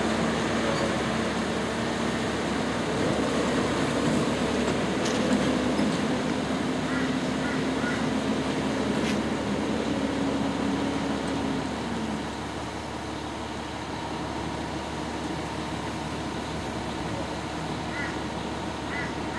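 Diesel engine of a heavy road train pulling away very slowly under load, a steady drone that rises slightly in pitch about three seconds in, then drops away around twelve seconds in as the rig moves off.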